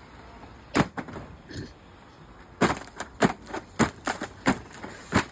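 Sharp knocks and cracks: one about a second in, then about ten in quick, irregular succession from halfway through. These are hard blows on an LCD TV as it is being broken apart; no chainsaw engine is running.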